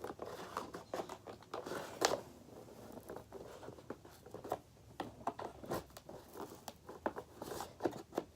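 Packaging being handled during unboxing: irregular rustling and crinkling with small clicks and taps, a louder one about two seconds in.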